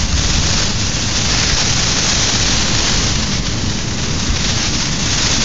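Strong wind blowing over the microphone: a loud, steady rushing hiss with a low buffeting rumble underneath.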